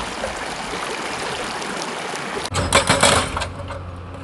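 Fast stream rushing over rocks; about two and a half seconds in it gives way to an excavator's hydraulic rock breaker hammering stone in rapid blows over the steady hum of the machine.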